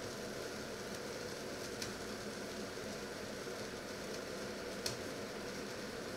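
Water heating in a covered stainless steel pot on an electric hob: a steady low hiss and rumble, with two sharp ticks from the pot.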